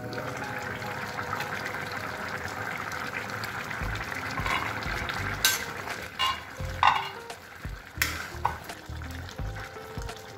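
Chicken curry sizzling in a steel kadai, followed by a spatula stirring it and knocking against the pan several times in the second half. Background music plays underneath.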